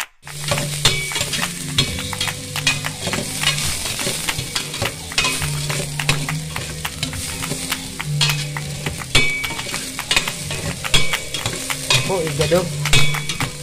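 Chopped onion and garlic sautéing in oil in a stainless steel pot, sizzling, while a spatula stirs and scrapes against the metal in frequent clicks.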